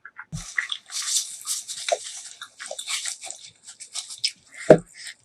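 Close-miked eating: crisp, crackling chewing of crunchy food, most likely spicy fried chicken coating, with a low thump about half a second in and another near the end.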